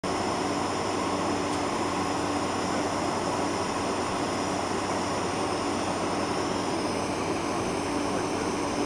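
Steady cabin noise inside a Boeing 747-400 taxiing: an even rush of engines at low taxi power and cabin air, with a steady low hum under it.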